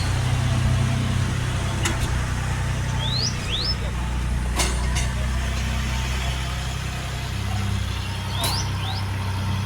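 Tractor engine idling steadily with a low, even hum. Birds chirp briefly twice, with short rising calls about three seconds in and again near the end, and there are a few sharp clicks.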